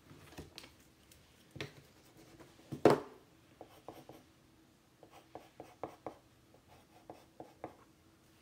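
A drawing tool scratching across paper in short strokes and quick runs of strokes, with one much louder thump about three seconds in.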